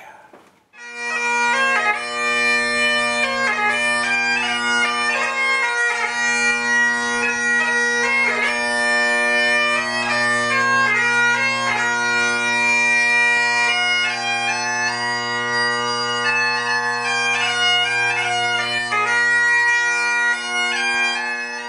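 Great Highland bagpipes playing a slow melody on the chanter over steady drones, starting about a second in.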